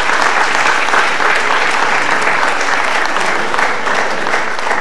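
Audience applauding, a steady stretch of many hands clapping.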